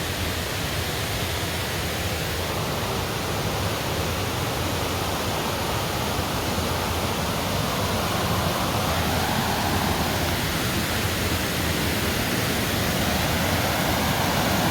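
Steady rush of a waterfall, growing a little louder toward the end.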